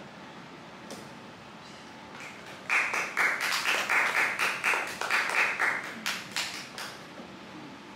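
Audience clapping. It starts suddenly about three seconds in, as a quick run of many overlapping claps, then thins to a few scattered claps and stops about four seconds later.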